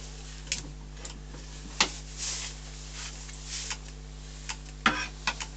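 Wood lathe running slowly with a large, unbalanced green-wood blank: a steady motor hum with irregular sharp clicks. The clicks come from a small protruding piece of the spinning blank knocking against the tool rest.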